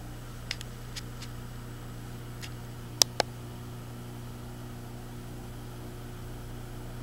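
Steady low hum of room tone with a few light clicks, and a sharper double click about three seconds in.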